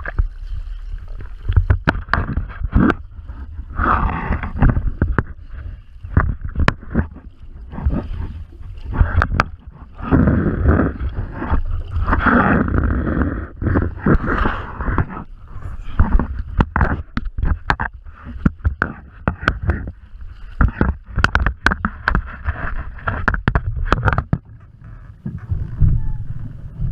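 Choppy sea water sloshing and splashing around a waterproof action camera at the surface, with many sharp knocks and scrapes of the housing over a low rumble.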